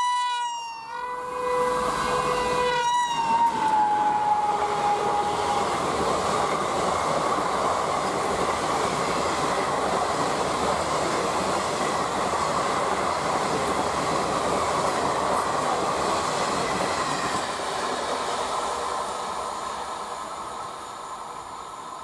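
WAP-4 electric locomotive's horn sounding as the express comes up, its pitch dropping as it passes about three seconds in. The coaches' wheels then run past at speed as a steady noise that fades over the last few seconds.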